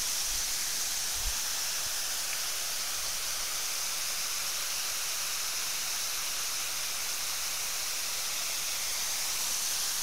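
Steady rushing hiss of a waterfall about 15 to 20 metres high, falling over karst rock into a pool.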